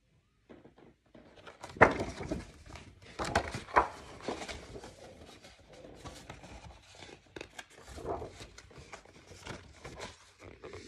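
Paper rustling and crinkling as a picture book is handled and its pages turned, with sharper rustles and knocks about two seconds in and again around three to four seconds in.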